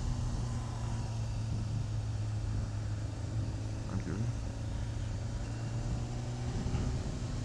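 Yamaha YZF600R's inline-four engine running at steady revs while riding, a constant hum under a rush of noise.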